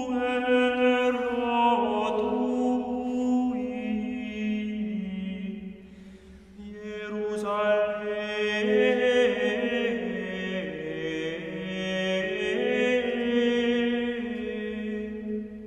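Background music of a slow chant: long held sung notes that move in steps from one pitch to the next, with a short break between phrases about six seconds in.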